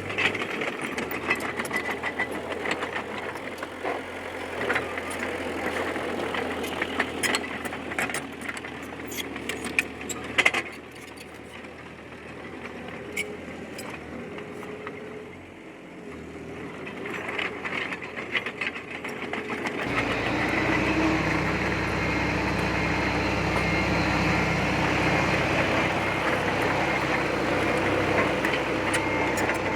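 D20P bulldozer's diesel engine running, with frequent sharp metallic clanks and knocks from the tracks and blade over the first third. The engine eases off briefly, then rises to a louder, steady pull from about two-thirds of the way in.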